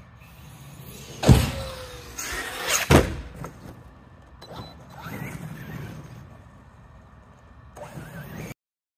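Traxxas Sledge brushless electric RC monster truck driving hard: its motor whines up and down in bursts, with two loud hard impacts, one about a second in and another about three seconds in, as the truck comes down. The sound cuts off suddenly near the end.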